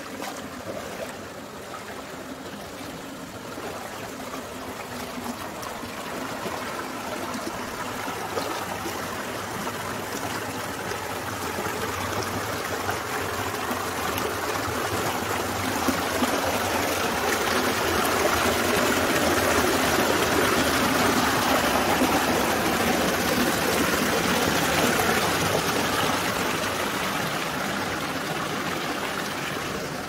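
Stream water running, a steady rush that grows louder through the first two-thirds and eases a little near the end.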